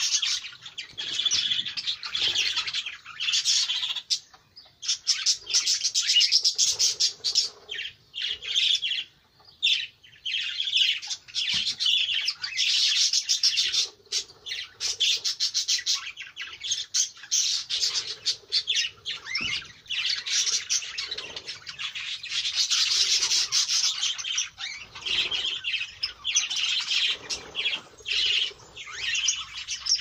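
A flock of budgerigars and cockatiels chattering and calling together: dense, continuous twittering with squawks mixed in, broken by short lulls about four and nine seconds in.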